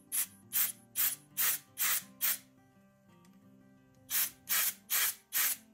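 Aerosol brake cleaner sprayed through a long extension straw into the engine's oil passages, in short hissing spurts about two and a half a second: six in a row, a pause of about two seconds, then four more. Acoustic guitar music plays underneath.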